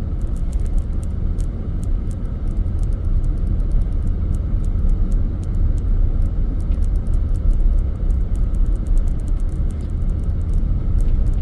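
Steady low rumble of a Suburban SUV driving through deep snow, heard inside the cabin, with a faint irregular crackle over it.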